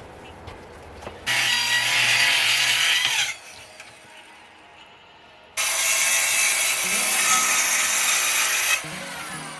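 Power saw cutting through wood in two passes of about two and three seconds, each starting and stopping abruptly.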